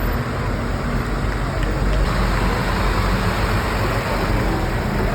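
Steady outdoor street noise: a low vehicle-engine rumble under scattered voices.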